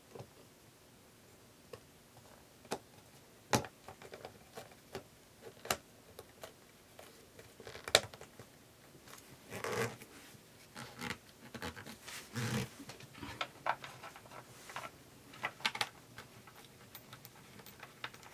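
Scattered clicks, taps and short scrapes of hands handling a B&W Nautilus-type tweeter pod and the wooden speaker cabinet while the tweeter is refitted. Two sharp clicks stand out, a few seconds in and about halfway, and brief rustling follows.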